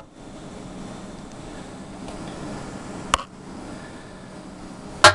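Steady hiss with two sharp knocks, most likely the camera bumping the fuel tank's filler neck. The first knock comes about three seconds in; the second, near the end, is louder and rings briefly.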